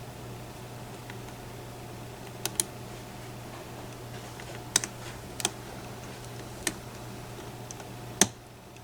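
Scattered sharp metallic clicks from a lock pick probing and setting pins in a pin-tumbler challenge lock held under a tension tool: about six irregular clicks, the loudest near the end, over a steady low hum.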